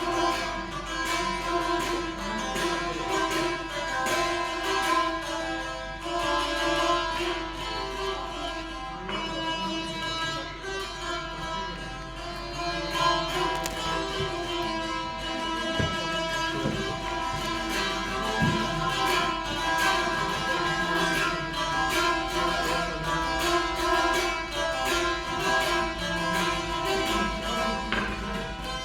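Azerbaijani saz played solo: fast plucked strokes over a steady drone note.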